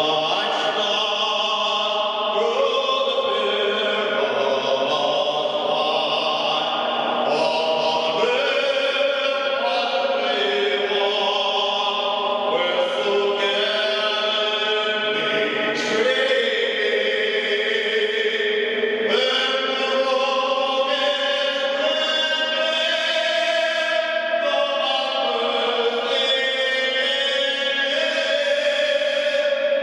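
Music: a choir singing slow, held chords that change every few seconds, with no beat.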